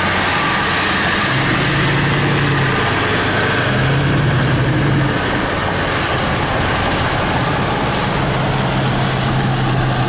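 Car driving at a steady pace, with road and tyre noise and a low engine hum heard from inside the cabin.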